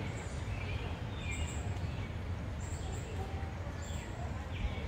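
Birds chirping in short calls about once a second, over a steady low rumble.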